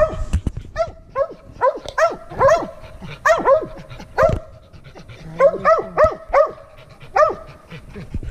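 Two mountain cur dogs barking steadily in quick short barks, about two a second, often in runs of two or three. This is tree barking: the dogs are treeing, with a raccoon up the tree.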